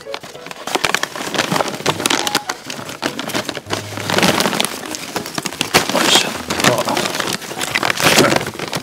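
Cardboard box and heavy kraft-paper charcoal sack rustling and crinkling as the box is pulled off the sack and the sack's top is opened by hand, with louder bursts of crumpling about four, six and eight seconds in.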